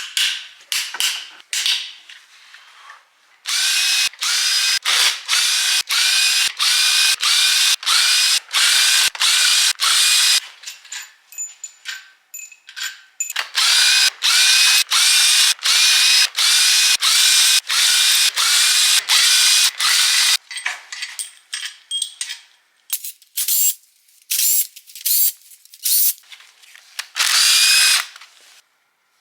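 Power tool run in quick repeated trigger pulses, each with a short rising whine, loosening bolts on a 6.0 LS V8 being torn down. It goes in two long runs of several seconds, with shorter, scattered bursts before and after.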